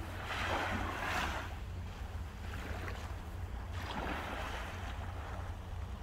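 Small sea waves washing up a sandy beach: two hissing washes about three and a half seconds apart, the first the louder, over a steady low rumble.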